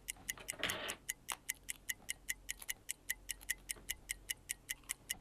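Rapid, even ticking of a watch movement, about five to six ticks a second, with a short rustle of handling about half a second in.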